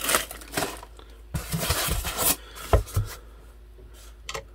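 Plastic bag crinkling as it is handled at the start, then rubbing and a few sharp knocks as a bare wooden guitar-kit neck is lifted and handled in its plastic packing tray.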